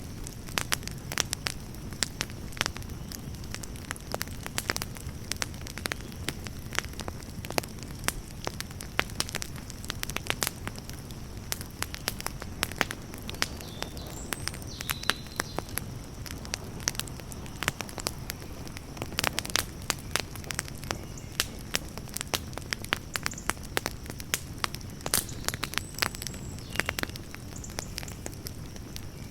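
Campfire burning with a steady low rumble and frequent sharp, irregular crackles and pops.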